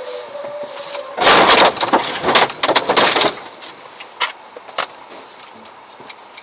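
Vehicle crash caught on a dashcam: a loud, noisy impact about a second in, followed by a run of knocks and clatter for about two seconds, then a few isolated clicks. A steady tone sounds briefly at the start before the impact.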